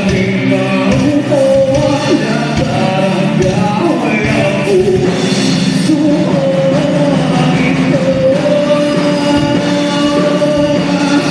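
Live band music played loud through a PA, a voice singing a held melody over the band.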